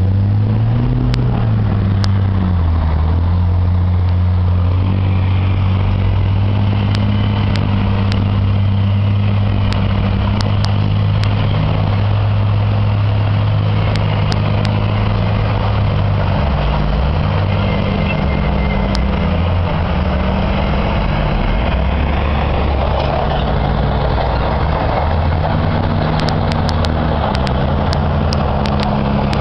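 Heavy diesel engine of an MRAP armoured truck running, its pitch stepping up and down as it drives, with a few sharp clicks scattered through.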